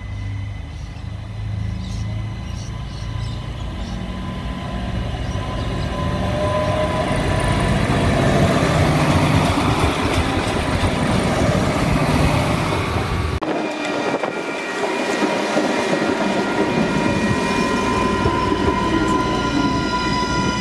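Adelaide Metro 3000-class diesel-electric railcar passing close, its engine hum and running noise growing louder. About two-thirds through there is an abrupt cut to a 3100-class railcar passing alongside, with a steady high whine over the running noise.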